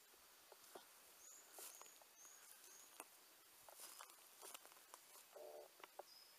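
Near silence in the woods: faint scattered crackles and clicks, like dry leaf litter being stepped on, with a few short high peeps and a brief low buzz about five seconds in.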